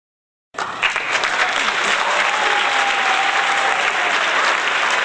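Theatre audience applauding, cutting in suddenly about half a second in and then running on at a steady, dense level, with a few faint voices or whistles above the clapping.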